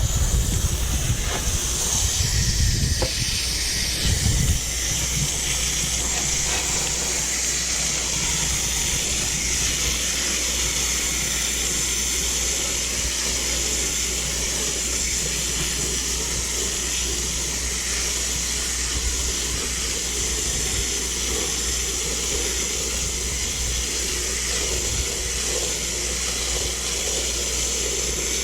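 Garden hose spray hissing steadily as water is sprayed through an air-conditioner condenser coil to rinse it clean. Low rumbles come and go in the first few seconds.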